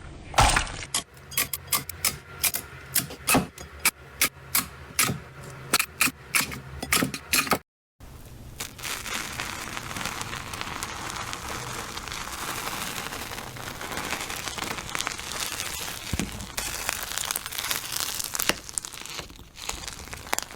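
Slime being played with: a rapid run of sharp pops and clicks for about seven seconds, a brief cut, then a steady dense crackling.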